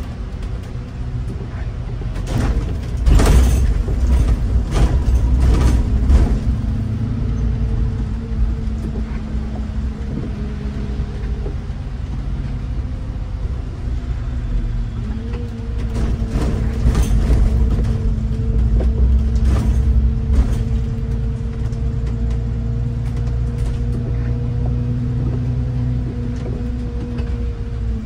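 Bus driving, heard from inside: a steady low rumble of engine and road with a constant hum. Clusters of knocks and rattles come about two to six seconds in and again around sixteen to twenty-one seconds in, where it grows louder.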